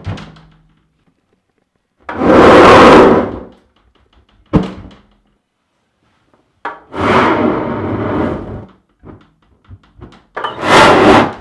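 91% isopropyl alcohol vapour igniting inside a large water-cooler bottle three times, each a rushing whoosh of one to two seconds as the flame jets out of the neck. A single sharp knock comes between the first and second.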